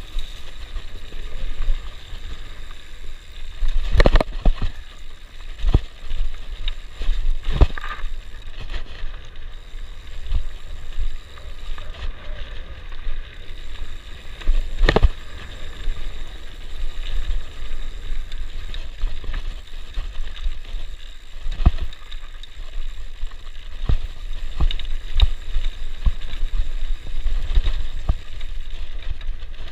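A mountain bike rolling fast down a dirt singletrack: a constant low rumble of wind on the camera microphone and tyre noise, with sharp knocks and rattles of the bike hitting bumps every few seconds, the loudest at about 4, 15 and 22 seconds in.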